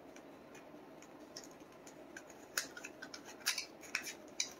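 Card stock being folded and creased by hand into a box: faint crisp rustles with a handful of sharp little crackles in the second half.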